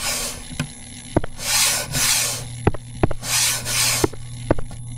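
Scratchy rubbing noise close to the microphone in about six short bursts, with a few light clicks in between.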